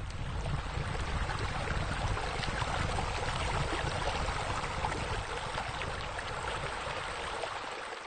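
Steady rush of running, splashing water, as from a pool's water features spilling.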